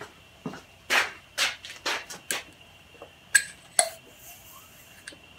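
Metal engine parts, a pneumatic engine cylinder and its piston, being handled on a workbench: a run of knocks and clunks, then two sharp metallic clinks with a brief ring past the middle.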